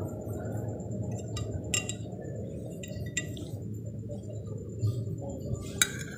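A metal spoon clinking against a glass plate of rice, a few sharp separate clinks with the loudest near the end, over a steady low background hum.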